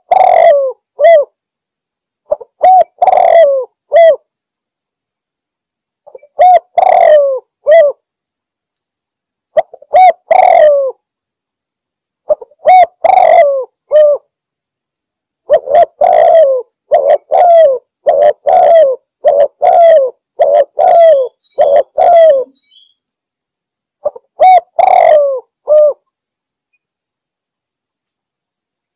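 Spotted dove (tekukur) cooing in short phrases of several coos each, repeated every few seconds, with a longer run of coos about midway through. This is a lure call used to draw in a rival male.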